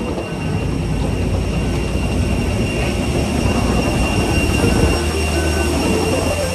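Strong wind buffeting the microphone over a loud, steady machinery rumble with faint high whining tones.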